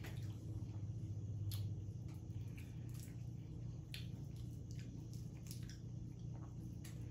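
Crawfish being peeled by hand, with small scattered shell cracks and wet squishes of meat in sauce, over a steady low hum.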